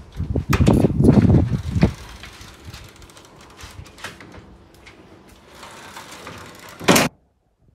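A metal mesh security screen door rattling and clattering on its sliding track as it is handled and opened, with knocks and phone-handling noise. One sharp loud bang comes near the end, and then the sound cuts off.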